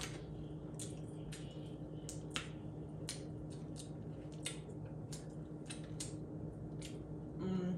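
Crab leg cluster shells being snapped and picked apart by hand, with wet eating sounds up close. It comes as a scatter of sharp clicks and snaps, about two a second.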